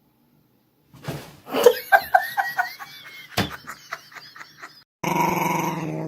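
A quick run of short pitched calls, about four or five a second, and then, starting suddenly about five seconds in, a dog growling steadily.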